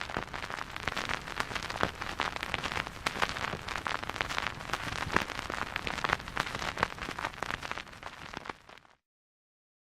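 Rain pattering: a dense, steady spatter of many small ticks that cuts off abruptly near the end.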